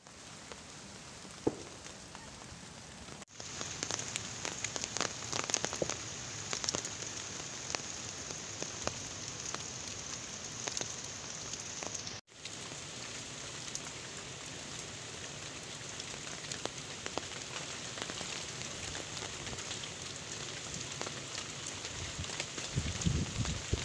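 Heavy rain falling on leaves and vegetation: a steady hiss with many sharp ticks of individual drops striking close by. The sound jumps abruptly twice where the recording cuts between shots.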